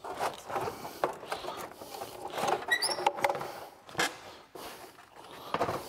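Plastic radiator fan shroud with its electric fans being pulled up out of the engine bay: scraping, rattling and knocking of plastic against the radiator and car body, with a short squeak a little before the middle and a sharp knock about four seconds in.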